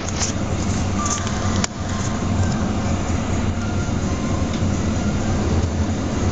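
Skip-bin truck's diesel engine running steadily while driving, heard from inside the cab, with a single sharp click about a second and a half in.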